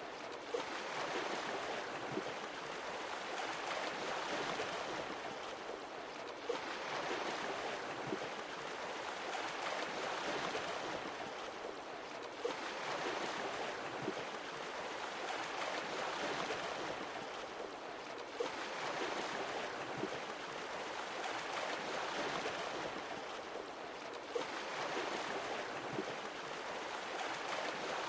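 Sea waves washing onto a shore, each swelling and easing back about every six seconds, with a small sharp tick as each wave begins.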